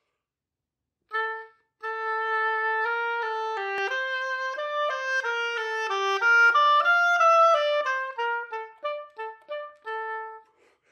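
Solo oboe playing a slow melody: a short note about a second in, then a long held note, the line stepping up and falling back, breaking into short detached notes near the end.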